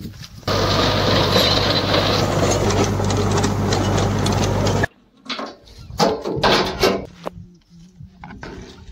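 Swaraj 843 XM diesel tractor driving a 6 ft Jadhao Leyland rotavator through dry stubble: a steady engine hum under the loud churning of the blades, which cuts off abruptly about five seconds in. Softer scattered knocks and handling noises follow.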